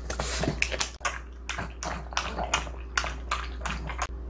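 A pug chewing a sticky, chewy sweet-potato and glutinous-rice-flour tart crust: quick, irregular wet mouth clicks and smacks, about three to four a second, as the dough takes a long time to chew.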